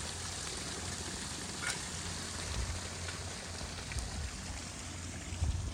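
Pump-fed garden pond waterfall, water pouring and splashing steadily into the pond.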